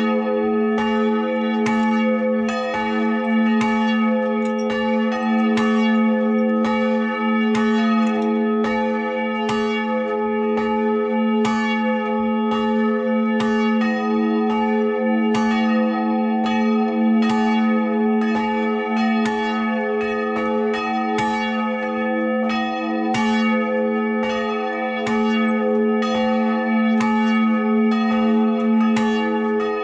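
Two bronze church bells swinging and ringing together in full peal: the 700 kg St. Barbara bell, cast in 1614 by the Schrötter founders and tuned to A, and the smaller St. Francis bell of 2016, tuned to E an octave and a fifth above middle A, rung by hand with ropes. Their clapper strokes fall in a steady, overlapping stream over a continuous deep ringing hum.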